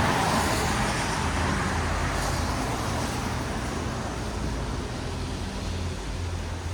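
Tyres hissing on a wet road as a vehicle passes, loudest at the start and fading away, over a steady low rumble of traffic.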